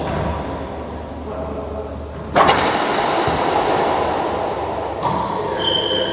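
Racquetball play in an enclosed court: sharp hits that echo off the walls, the loudest about two and a half seconds in and another about five seconds in. Near the end a high squeak of a sneaker on the hardwood floor.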